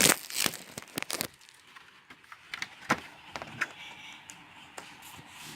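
Packaging being handled during an unboxing: a quick run of crackling clicks in the first second or so, then a few scattered clicks and taps.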